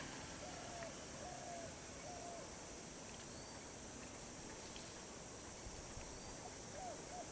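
Faint natural ambience: a steady high insect drone, with a bird giving short rising-and-falling calls over and over, several in the first two seconds and again near the end.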